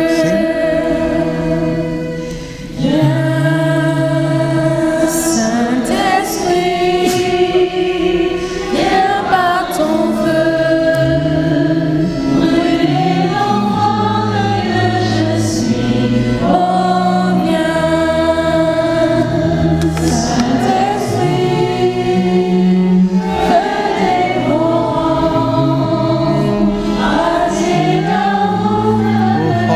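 A group of voices singing a slow Christian worship song in long held notes over a steady instrumental accompaniment.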